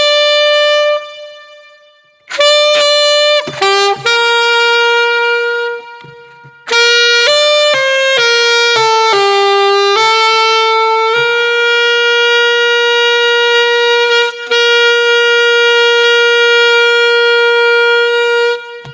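Yamaha YAS-23 alto saxophone played solo: a short melodic run, two brief pauses, then the phrase closes on a long held note lasting about seven seconds.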